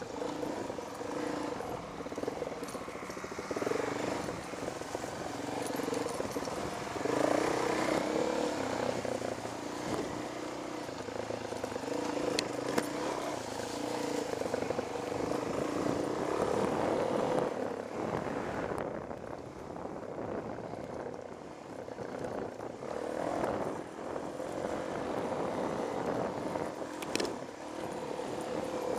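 Dirt bike engine running through rough trail riding, its pitch rising and falling with the throttle. It eases off for a few seconds about two-thirds through, then picks up again.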